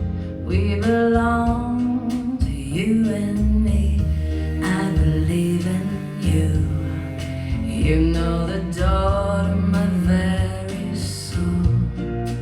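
A slow pop ballad with singing over guitar and a strong, steady bass, played back through Tannoy 609 loudspeakers.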